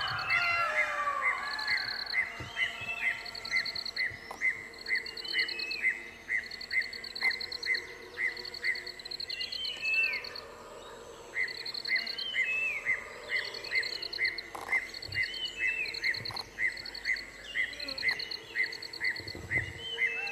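A chorus of wild birds calling in dry forest. One repeats a short note about twice a second, another gives a quick buzzy trill about once a second, and others add down-slurred whistles. The steady run of notes breaks off briefly about halfway through.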